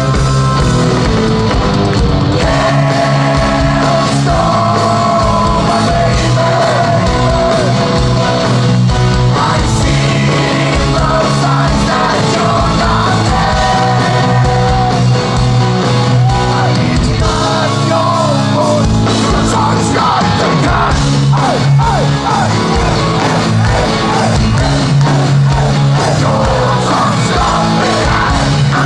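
Heavy metal band playing live, with distorted guitars, drums and sung, partly shouted vocals, loud and unbroken.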